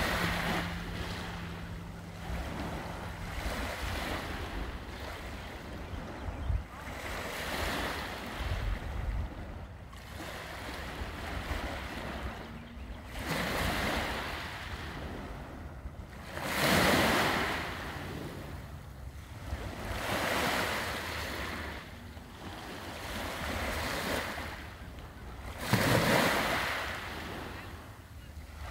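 Small waves breaking and washing up a sand-and-pebble beach, each wash swelling and fading every three to four seconds, two of them louder, midway and near the end. Wind rumbles on the microphone underneath.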